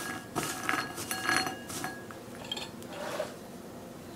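Crisp fried mathri pieces clinking and rattling against a ceramic bowl as a hand tosses them in spice masala, each knock leaving a short ring from the bowl. Several clinks come in the first two seconds, then softer rustling.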